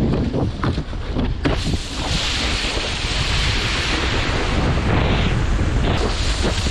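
Wind buffeting an action camera's microphone with the hiss of water spraying off a wakeboard riding across a lake. The spray hiss grows louder about two seconds in.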